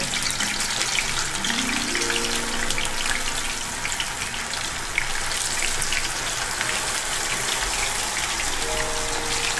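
Methi masala baatis deep-frying in hot ghee: a steady sizzle thick with fine crackling.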